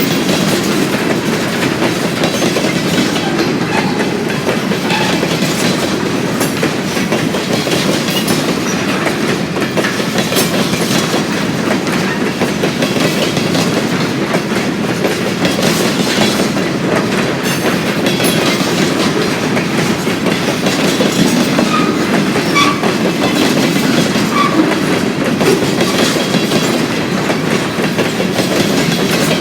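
Freight train cars rolling steadily past at speed, their wheels clicking over the rails.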